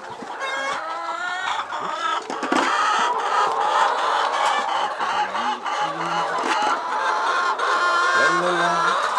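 A flock of laying hens clucking and calling, many short pitched calls overlapping, with scattered sharp knocks.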